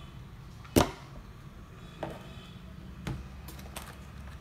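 Lenovo ThinkPad E15 Gen 2 laptop knocking and clicking against a wooden tabletop as it is handled and turned: one sharp knock about a second in, then a few lighter clicks.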